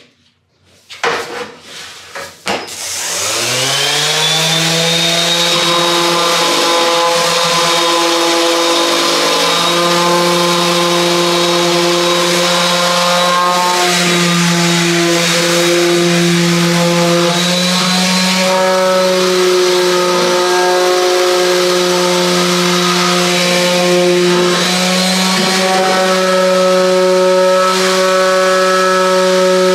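Random orbital sander switched on after a few brief knocks, its motor rising to speed about three seconds in, then running steadily with a high whine as it sands the wooden board top, its pitch shifting slightly now and then as it is pressed and moved.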